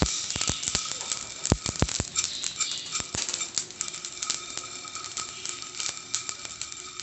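Whole spices, including coriander and cumin seeds, dry-roasting in a small nonstick pan, rattling and clicking against the pan as a wooden spatula stirs them. The clicks are thickest in the first couple of seconds and thin out after.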